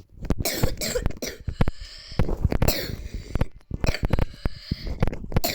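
A person coughing over and over: a long run of harsh coughs in quick clusters, standing for the corn character's coughing fit.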